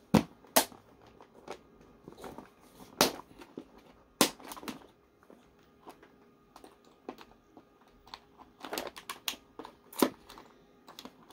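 Small glitter jars and containers clicking and knocking against each other as they are rummaged through, picked up and set down. The clicks are sharp and irregular, with a quick flurry of them near the end.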